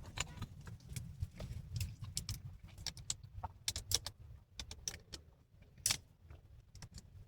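Irregular sharp clicks and light clatter, loudest about six seconds in, over a steady low rumble.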